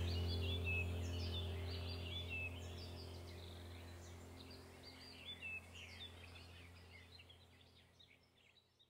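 Ambient background music fading out: a sustained low drone with recorded birdsong chirping over it, dying away to near silence near the end.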